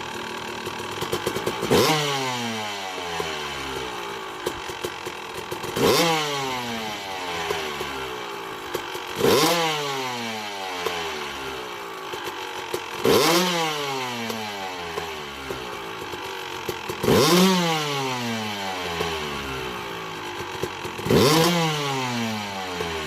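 Two-stroke YZ250 engine with a 285 big bore kit, blipped sharply six times about every four seconds, its pitch falling away after each rev. It still crackles a little on the top end: running lean, starving for fuel, even at 10 clicks richer on the Smartcarb.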